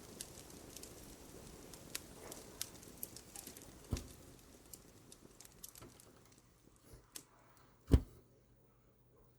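Fireplace crackling, with scattered sharp snaps over a low hiss. Two louder, duller thumps come about four and eight seconds in, the second the loudest, and the crackle thins out near the end.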